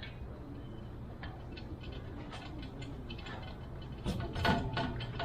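Irregular light metallic clicks and ticks of metal parts being handled, getting busier, with a few sharper knocks about four seconds in.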